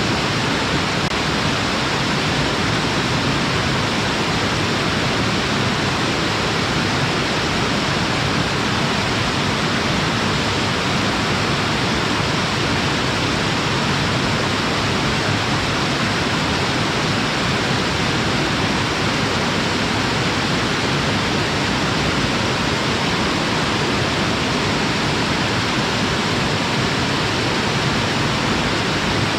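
Waterfall: water pouring and splashing in a steady, loud, unbroken rush.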